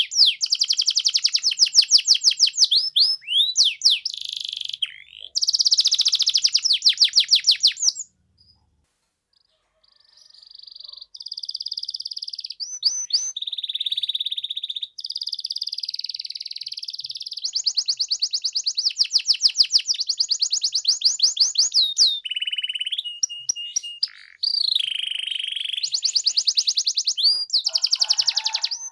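Domestic canary singing a long, varied song of rapid trills and held whistled notes, with a pause of about two seconds roughly a third of the way in.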